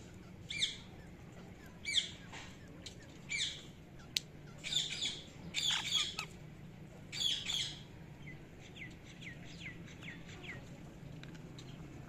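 Rose-ringed parakeets giving harsh, squawking calls in short bursts through the first eight seconds, loudest in the middle. There is a single sharp click about four seconds in, and fainter short falling chirps follow.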